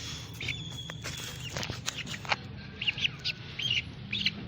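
Young chickens cheeping: short, high chirps repeated several times, thickest in the second half, over a steady low hum.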